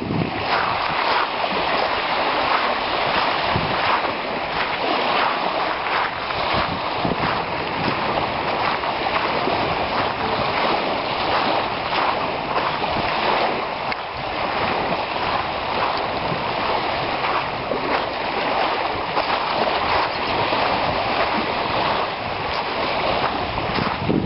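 Small lake waves lapping and washing over a shallow gravelly shore: a steady rushing wash that swells a little with each wave.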